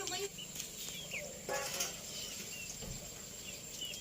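Small birds chirping repeatedly, with one short, louder call about one and a half seconds in.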